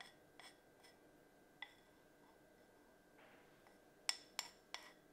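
Metal spoon clinking faintly against a ceramic bowl while melted chocolate is spooned out. There are a few light taps early on, a soft scrape about three seconds in, and four quick taps near the end.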